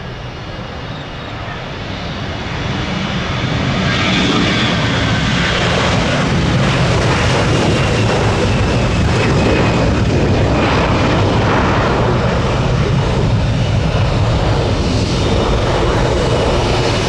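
Jet airliner engines at close range, their noise building over the first few seconds and then holding loud and steady.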